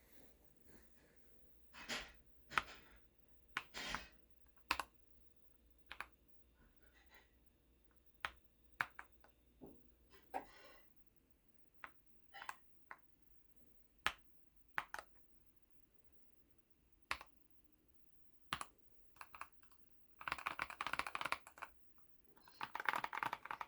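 Key presses on a Tecware Phantom 87 Elite mechanical keyboard with pre-lubed brown tactile switches: single keystrokes spaced a second or so apart, then two quick bursts of fast typing near the end.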